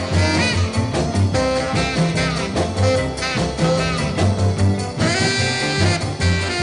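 1950s rock and roll song in an instrumental break, with a saxophone-led horn line over a steady bass and drum beat.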